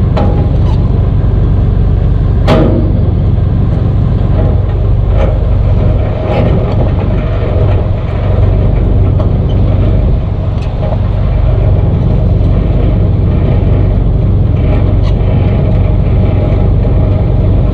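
Semi truck's diesel engine running steadily with a deep, even rumble, and a single sharp knock about two and a half seconds in.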